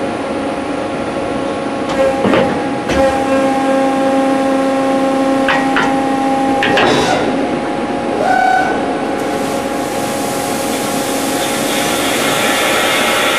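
CNC beam drilling machine running with a steady mechanical hum and whine, with several metallic clanks and knocks in the first half as the steel beam is positioned under the drill spindles. A steady hiss builds near the end as a drill comes down to the beam.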